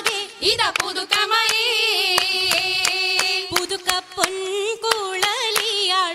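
An oppana song: a single voice singing long, wavering held notes over sharp, rhythmic hand claps.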